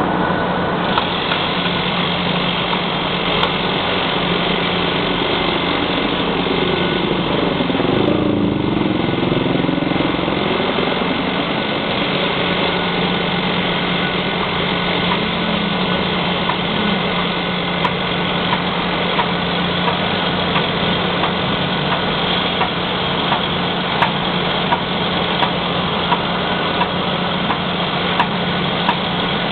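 Mobile crane's diesel engine running steadily, with a brief rise and fall in pitch about eight seconds in.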